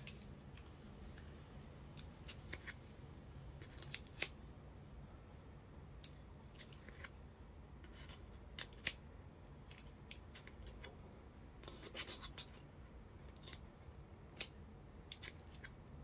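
Small sharp clicks and snaps, a dozen or so at irregular intervals with a quick cluster about three-quarters of the way through, from a Ulanzi Hummingbird quick-release clamp and phone mount being handled, locked and released.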